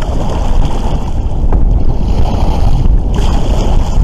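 Wind buffeting the microphone, with water lapping and splashing against the kayak's hull on choppy water.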